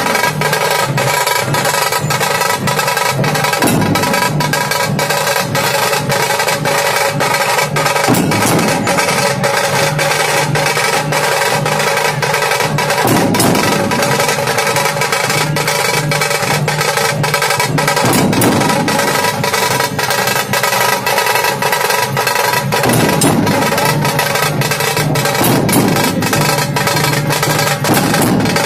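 Music with a steady percussion beat over sustained tones.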